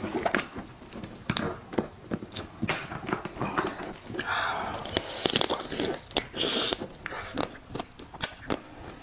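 Raw marinated crab being cracked and pulled apart by hand, close to the microphone: many short wet clicks and snaps of shell breaking, with a longer tearing stretch about four to six seconds in.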